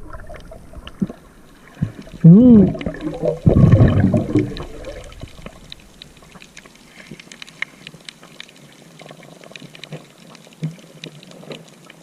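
Water sloshing and splashing, with a loud splash about three and a half seconds in and faint crackling after it. Just before the splash there is a short pitched sound that rises and then falls.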